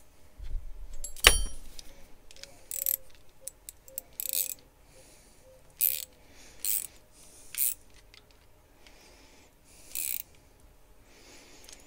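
Small metal tool work on a grease fitting being threaded into a lathe guard: a sharp metallic clink about a second in, then a series of short, high-pitched rasping strokes a second or so apart as the fitting is turned in.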